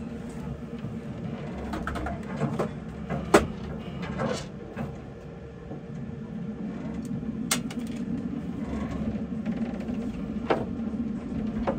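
A steady low hum with scattered sharp clicks and knocks a few seconds apart; the loudest is a single click about three and a half seconds in.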